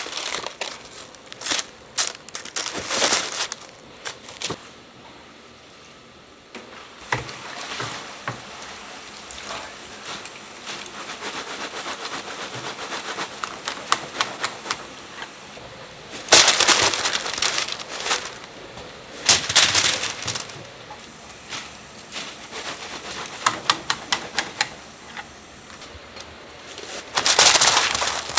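Fried round donuts clattering as they are tipped out of a wire mesh strainer onto paper-lined wooden trays, in a few loud tumbling bursts. Between the bursts come quick clicks of metal tongs and donuts dropping onto the trays.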